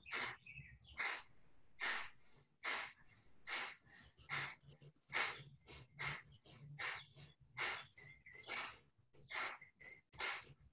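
A person doing bellows breath (bhastrika pranayama): quick, forceful breaths in and out through the nose in a steady rhythm, a little over one a second, each exhale a sharp rush of air.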